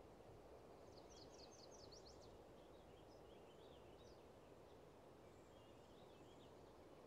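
Very faint woodland ambience: distant small birds chirping in quick, scattered calls over a low hiss.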